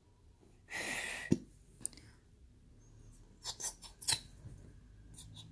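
Plastic glue bottle being squeezed over a bowl: a short hiss of air sputtering out about a second in, ending in one sharp click, then a few lighter clicks of the plastic bottle a little later.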